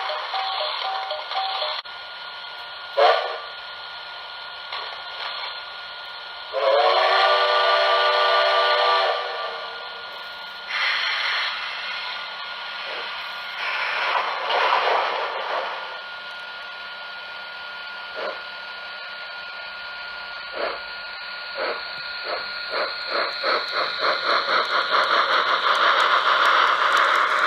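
Onboard sound system of a Tenshodo Quantum HO-scale D61 steam locomotive model: a short whistle toot, then a long steam whistle with several stacked tones, bursts of steam hiss, and exhaust chuffs that begin about two-thirds of the way through and quicken as the locomotive starts away, all over a steady hiss.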